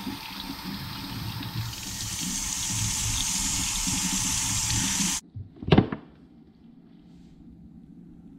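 Kitchen faucet running into a stainless-steel sink while a small cleaned catfish is rinsed under the stream. The water stops abruptly about five seconds in, followed by a single sharp knock.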